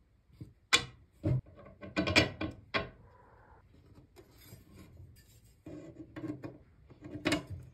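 Handling noise of a wooden tool handle and a rusty iron blade on a wooden workbench: sharp knocks and clicks as the pieces are picked up and set down, a brief scrape about three seconds in, and rubbing with one more knock near the end.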